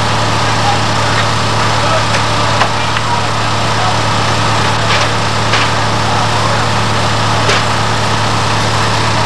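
Fire apparatus engine running with a steady low drone, with several sharp knocks and faint distant voices over it.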